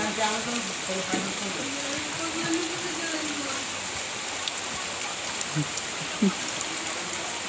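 Steady rain hiss, with boys' voices calling out now and then, including two short rising shouts a little past the middle.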